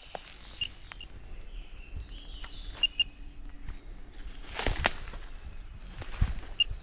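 Handheld automess radiation dose-rate meter giving short high beeps at irregular intervals, about five, each marking a detected radiation pulse. Footsteps rustling in dry leaf litter run underneath, with the loudest crunching about two-thirds in.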